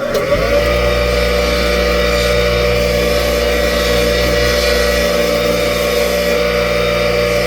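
Bench grinder with a wire wheel switched on, its motor spinning up over about the first half second and then running steadily with a hum and whine.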